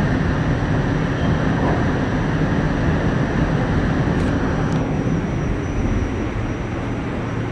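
Steady rumble and rail noise of an R46 subway train running on the track, heard from inside the car. Two brief clicks come just after four seconds in. The noise then eases somewhat as the train leaves the tunnel for the open station.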